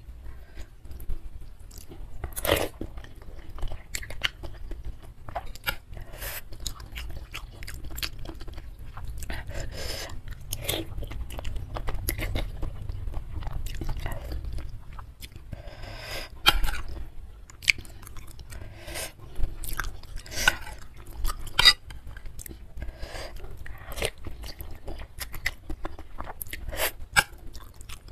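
Close-miked chewing of a mouthful of instant noodles and beef tendon meatballs in spicy soup, a dense run of short, sharp mouth clicks and wet smacks with no words.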